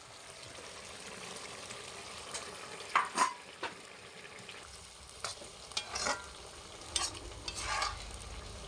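Cabbage and fish-head curry simmering and sizzling in a black iron kadai. From about three seconds in, a metal spatula stirring it scrapes and clinks against the pan several times.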